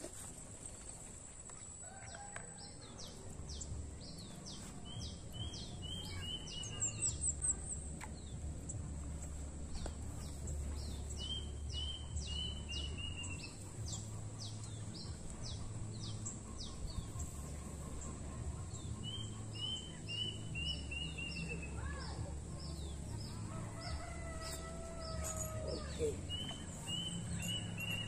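Birdsong: a small bird repeats a short phrase of quick high notes ending in a falling run, about every seven seconds. Near the end a rooster crows once. A low rumble runs underneath.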